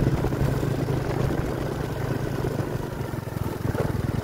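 Small vehicle's engine running steadily as it drives slowly along.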